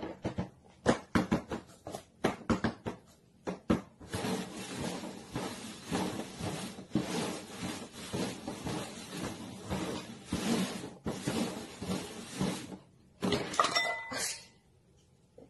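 Paper cups being knocked down and slid around on a cardboard box top while being shuffled for a shell game. A run of sharp taps comes first, then several seconds of quick scuffing and tapping, and a few light clinks near the end.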